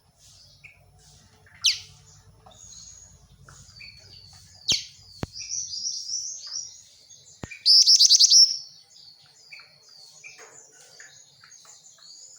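Female jingjing batu (black-winged flycatcher-shrike) calling: a string of short high chirps and sharp single notes, with a loud, rapid run of notes about eight seconds in.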